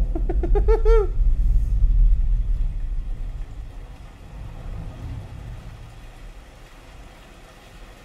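Deep bass rumble from a Dolby Atmos demo soundtrack played through a home theater's subwoofers, with a quick run of short rising-and-falling chirps about a second in. The rumble fades away over the next few seconds, leaving a faint steady hiss.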